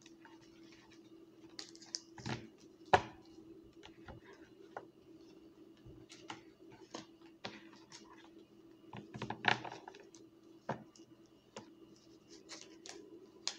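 Tarot cards being shuffled and handled: a run of light, irregular clicks and flicks of card stock, with louder taps about 3 seconds and 9½ seconds in, over a steady low hum.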